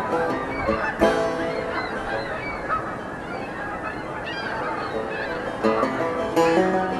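A flock of Canada geese honking, many calls overlapping, with louder honks about a second in and near the end. Background music plays underneath.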